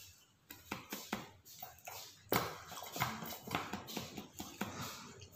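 Rapid knocking and rattling as a sauce bottle is held upside down and shaken over a plate to get the last of the sauce out, with a few separate knocks at first, then a dense run of quick knocks from about two seconds in.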